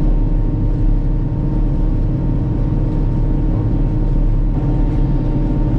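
Large farm machine's diesel engine running steadily at road speed, a constant low drone heard from inside the cab.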